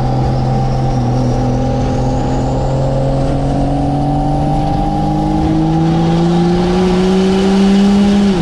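12-valve Cummins diesel heard from inside the cab, pulling under load with its revs climbing steadily and a high turbo whistle rising along with it. Near the end the revs drop sharply as the automatic transmission upshifts; its line pressure has been raised to firm up shifts that the owner blames on worn overdrive clutches.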